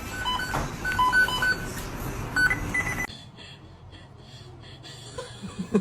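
A series of short electronic beeps at a few different pitches over a noisy background, ending in a sudden cut about three seconds in. A quieter stretch follows, and a voice or animal vocalising starts near the end.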